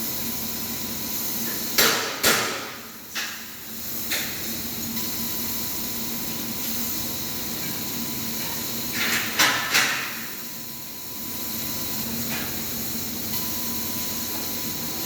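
Steady hiss of a running CNC laser cutting machine, broken by sharp knocks: a cluster of three or four about two seconds in, another quick cluster about nine seconds in, and a lighter one near twelve seconds.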